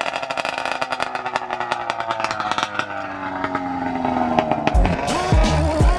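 Arctic Cat 580 two-stroke snowmobile engine in a swapped John Deere Gator running under way, with a sharp crackle, its pitch easing down over the first three seconds. Music with a heavy beat comes in near the end.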